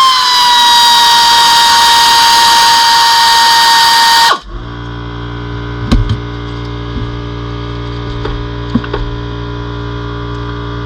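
A power tool runs with a loud, steady high whine and hiss for about four seconds, then cuts off abruptly. After that a steady low hum continues, with a few short metal knocks.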